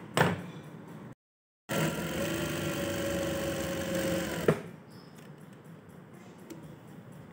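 Sewing machine running at a steady speed for a few seconds, stitching a fitting seam into a kameez, then stopping with a sharp click.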